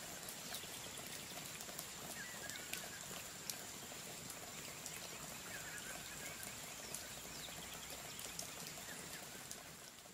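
Bread cubes toasting in a non-stick frying pan: a faint steady sizzle with scattered light crackles, over a thin high whine. A short chirp sounds a few times.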